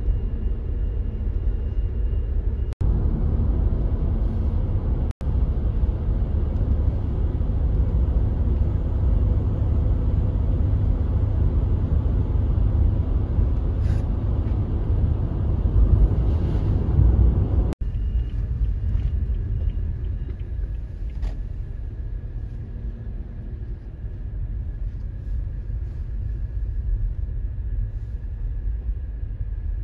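Road and engine noise heard inside a jumbo taxi, a passenger van, as it drives: a steady low rumble. It drops out abruptly three times, and it eases in the last third as the van slows toward a stop.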